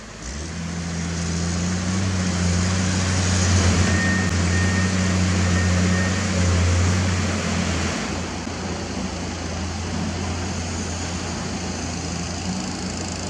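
Mountain stream rushing and splashing over rocks and a small weir, a steady wash of water noise, with a steady low drone under it that eases somewhat about eight seconds in.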